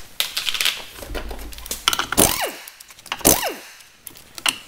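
Impact wrench loosening a car's wheel bolts, run in two short bursts about a second apart, each spinning up and winding down. Handling clicks and knocks come before the first burst.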